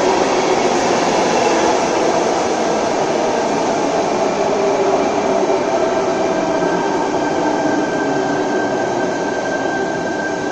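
Sydney Trains double-deck electric train running into an underground station platform and slowing down: a steady, loud rumble of wheels on rail echoing in the station box. A thin, steady high squeal joins about halfway through as it brakes.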